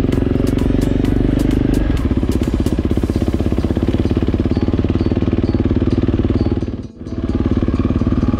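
KTM enduro motorcycle's engine running steadily while riding along a dirt track, with a rapid pulsing beat. The sound dips sharply and briefly just before seven seconds in, then carries on as before.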